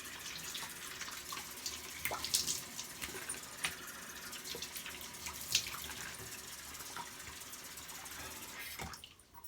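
Tap water running into a bathroom sink with irregular splashing, as from rinsing, shut off abruptly near the end.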